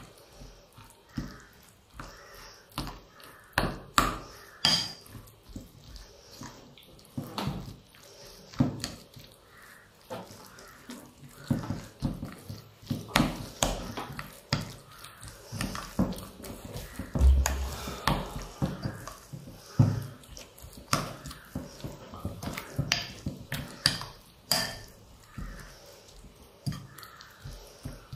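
A spoon stirring and scraping a thick mix of minced vegetables and mayonnaise in a glass bowl, with irregular light knocks of the spoon against the glass and a soft wet squish.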